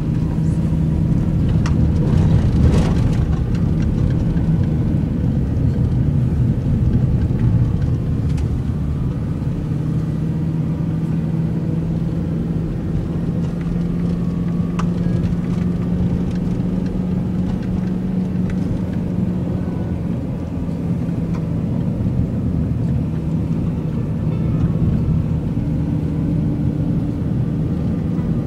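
Steady low engine drone with a held hum, level throughout.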